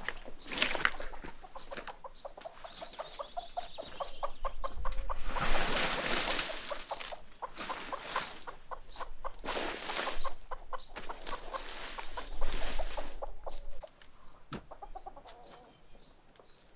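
Domestic chickens clucking, a steady string of short repeated calls. Several louder bursts of rustling and scraping from garden work cut across them; the loudest come about five to seven seconds in and again near twelve seconds.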